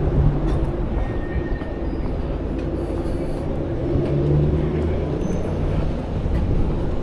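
A train running: a steady low rumble with a droning hum that swells and fades.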